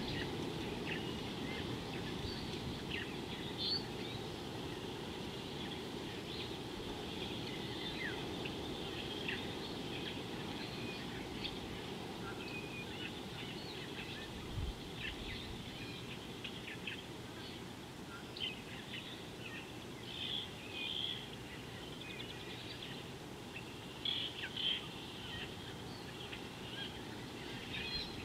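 Wild birds chirping and calling in many short, high notes, scattered throughout and busier in the second half, over a steady low background noise.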